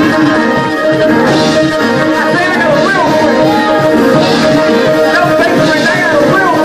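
Loud live church music: held keyboard chords with drums, and a voice gliding up and down over it.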